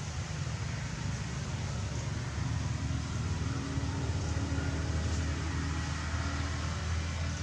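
A steady, low engine hum that grows a little louder a couple of seconds in.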